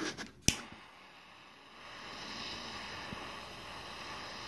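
A click about half a second in, then a small handheld butane torch's flame hissing steadily as it heats sheet metal. The metal is being preheated so hot-melt glue will not freeze the moment it touches.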